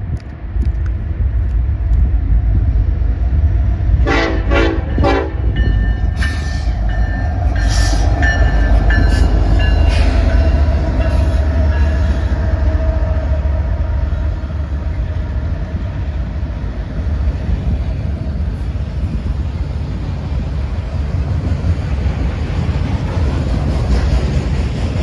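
Locomotive air horn played in a quick string of short blasts about four seconds in, then several more blasts: a horn show. Under it runs the steady low rumble of the passing freight train.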